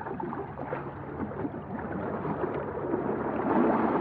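Water-like sloshing and gurgling played through a low-pass filter, so it sounds muffled and dull with the high end cut away. It grows gradually louder.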